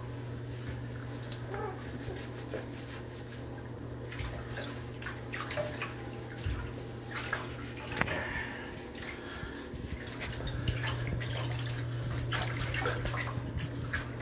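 Water splashing and dripping in a bathtub as a wet cat is lathered and handled, with irregular splashes growing busier from about four seconds in, over a steady low hum.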